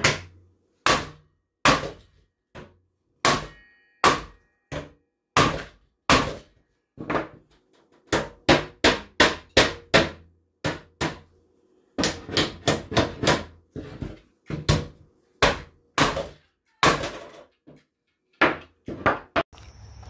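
Hammer striking wood strips on a plywood floor: a long series of sharp blows, some spaced about a second apart and some in quick runs of several a second, with a short pause near the end.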